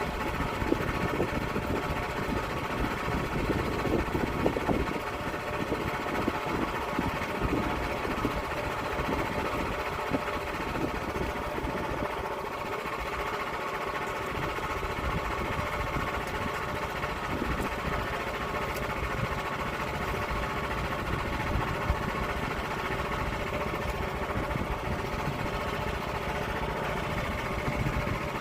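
Small gasoline saw engine running steadily under load while milling an oak log.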